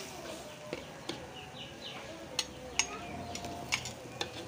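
Metal spoon stirring in a steel wok, with a handful of sharp clicks as it knocks and scrapes against the pan. Faint bird chirps in the background.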